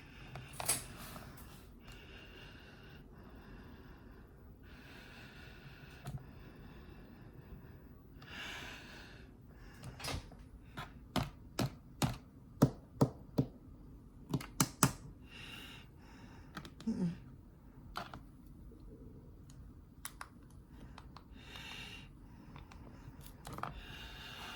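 A series of sharp clicks, about a dozen, most of them bunched together in the middle, over a faint steady low hum.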